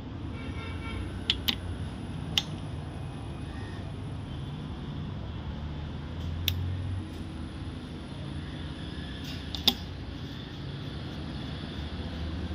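Scattered light metallic clicks and clinks as the oil pump drive chain and sprocket of a Toyota 2ZR engine are fitted by hand, five sharp ticks spread over a steady low hum.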